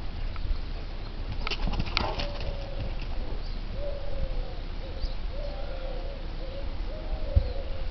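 A pigeon cooing over and over in drawn-out, slightly wavering notes, after a short clatter about one and a half seconds in.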